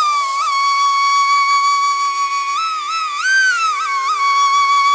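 Intro music: a single lead melody line that climbs to a long held note, slides up and down around the middle, and settles back on the held note.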